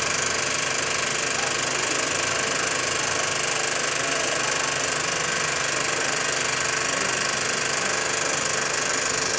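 A small engine running steadily at constant speed with a fast, even knocking and a loud hiss over it.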